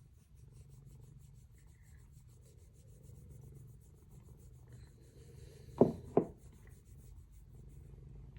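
A domestic cat purring up close, with rubbing sounds. About six seconds in there are two short, loud knocks close together.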